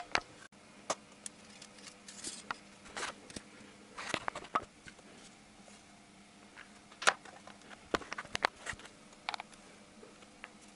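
Scattered light clicks and knocks of a plastic engine cover being handled and set in place over the ignition coils of a Honda D17A engine, over a faint steady hum.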